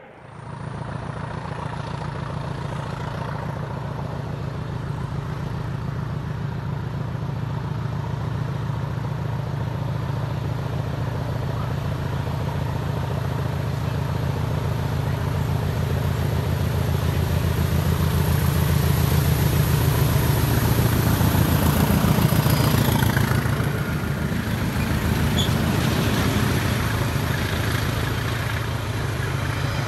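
Diesel locomotive working hard as it approaches and passes hauling a train of London Underground S-stock carriages, its engine note growing steadily louder to a peak about two-thirds of the way through, then easing a little as the carriages roll by. A high steady whistle sits above the engine throughout.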